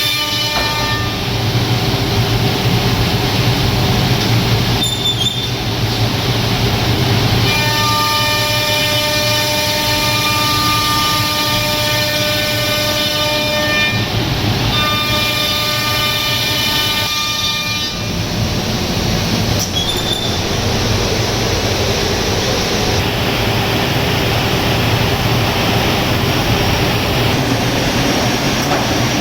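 HOMAG CNC router machining a round table top: a steady mechanical noise under a high, many-toned whine from the spindle and cutter. The whine sounds for stretches of several seconds and drops back in between as the cut goes on.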